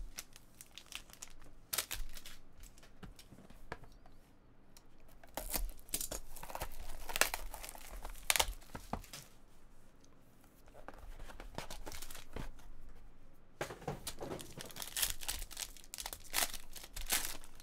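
Plastic shrink wrap being torn and crinkled off a sealed trading-card box, in irregular crackling bursts, with a quieter stretch just past the middle before more crinkling near the end.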